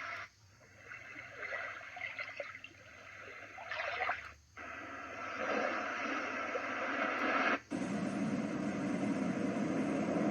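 White noise machine playing its ocean-wave sounds through its small speaker, switched from one ocean track to the next, with a short drop-out at each switch: about half a second in, again around four and a half seconds, and near eight seconds, where a brighter, hissier wash begins.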